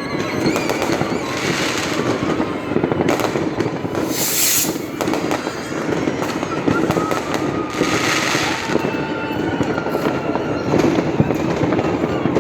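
Fireworks going off continuously in a dense crackle of pops and bangs, with two louder hissing bursts about four and eight seconds in.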